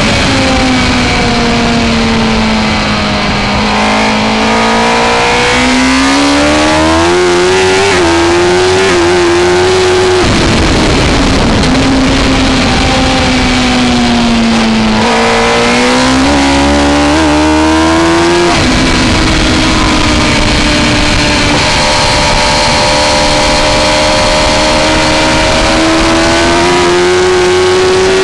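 Suzuki GSX-R1000 K3's inline-four engine at racing speed, heard from a camera mounted on the bike. Its pitch falls off, climbs hard through quick upshifts, falls again, climbs again with more gear changes, then holds fairly steady before rising once more near the end.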